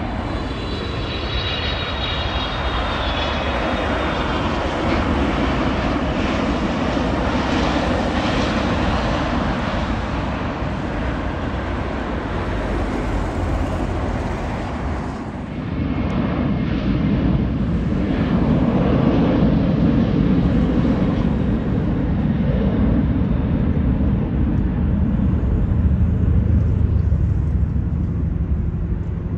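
Jet airliner engines running loud as an aircraft goes by, with a high whine falling in pitch over the first few seconds. The noise dips briefly about halfway through, then builds up loud again.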